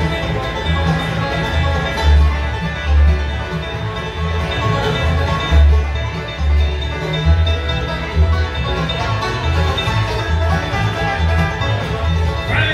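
Live bluegrass band playing an instrumental passage: banjo picking over acoustic guitar and fiddle, with an upright bass plucking steady low notes about twice a second.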